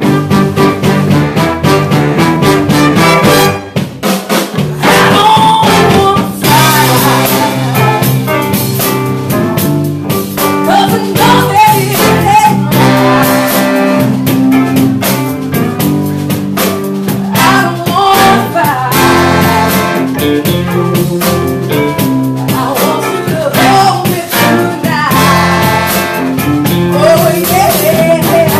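Live soul and R&B band playing loud, with a horn section of saxophone and trombone, electric guitar, bass guitar, drum kit and keyboard, and a woman singing lead. The band comes in all at once at the start.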